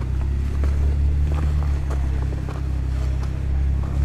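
Jeep engine running at low, steady revs, with faint scattered clicks over the drone.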